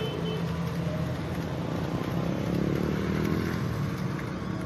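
Rail King toy train running along its track, its small motor and wheels making a steady mechanical whirring and rattle that grows a little louder as the carriages pass close, about three seconds in.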